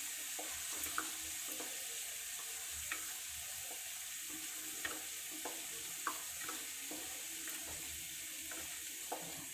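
Crushed garlic sizzling in hot olive oil, a steady hiss with small scattered pops, as it fries slowly toward golden brown.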